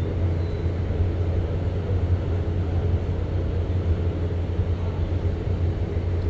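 Cruise ship's machinery running with a steady low hum, alongside the pier before departure.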